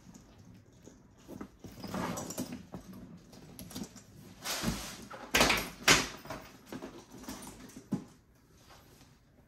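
Leather duffel bags being handled and set down: rustling and scuffing of the leather body and straps, with the loudest scuffs about five to six seconds in and a short knock near the end.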